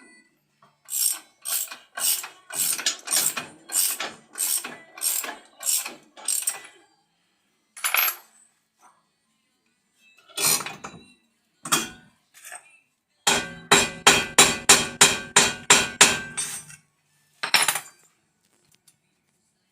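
Ratchet wrench clicking through repeated strokes: a run of about ten at roughly two a second, a few single strokes, then a faster run of about a dozen at roughly four a second.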